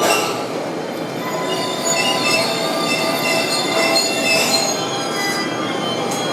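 Tobu 100 series 'Spacia' electric multiple unit pulling in to stop at a platform, its wheels and brakes squealing in several high tones over a steady rolling rumble.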